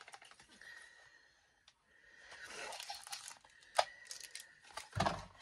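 A small cardboard cosmetics box and its paper packing being handled and torn open by hand. The rustling starts about two seconds in, with a sharp click near four seconds and a louder knock just before the end.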